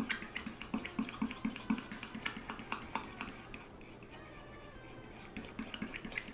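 Flat coil whisk clinking and scraping against a small stainless steel bowl while mixing flour into a thick paste: a quick, uneven run of metal taps that eases off briefly about four seconds in, then resumes.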